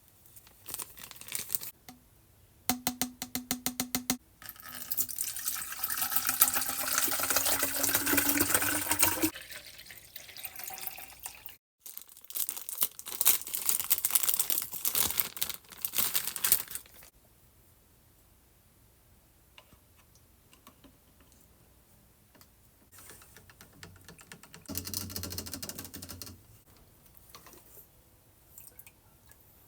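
Water running into the Barbie Color Reveal doll's plastic tube, the pitch slowly rising as it fills. A second long stretch of splashing water noise follows, then a shorter one near the end.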